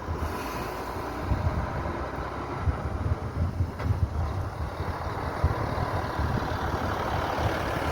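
Vehicle engines running in a convoy of cars and buses, a steady traffic noise with irregular low buffeting on the microphone.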